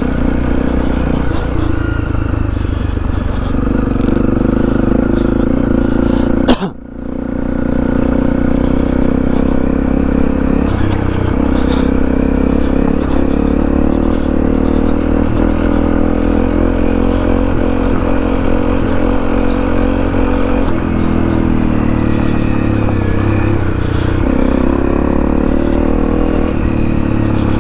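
Honda CRF250 single-cylinder trail bike engine running under way off-road, its revs stepping up and down a few times. There is a sharp knock about six and a half seconds in.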